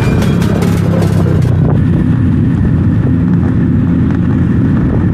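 A motor vehicle's engine running steadily, a loud low drone heard close up.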